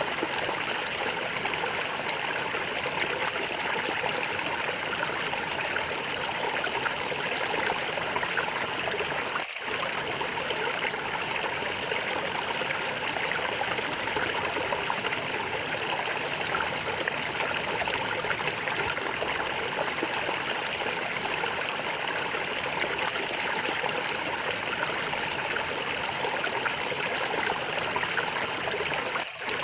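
A small stream of water gurgling and trickling steadily, with two momentary dropouts: one about a third of the way in and one near the end.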